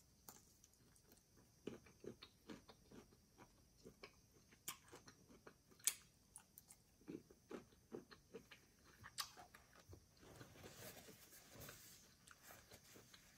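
Quiet, close-up chewing of cold cooked shrimp with the fingers: soft wet clicks and smacks of the mouth, with one sharper click about six seconds in. Near the end there is a short stretch of rustling as a paper napkin wipes the hands.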